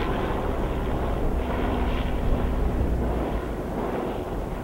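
Light helicopter flying overhead, its engine and rotor making a steady, fairly loud drone with heavy low rumble.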